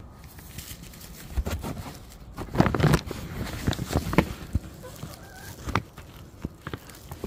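Chickens clucking, with a burst of loud, rapid calls about two and a half seconds in, mixed with scattered knocks and rustles.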